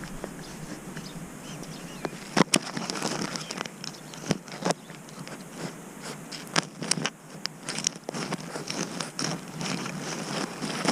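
A cat's paws crunching through fresh snow, heard up close from a GoPro worn on the cat: irregular soft crunches mixed with sharp clicks, starting about two seconds in.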